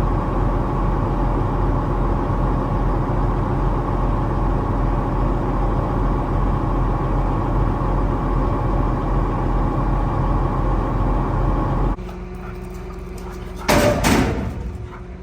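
A large vehicle engine idling steadily, cutting off abruptly about twelve seconds in. Near the end comes a brief loud bang.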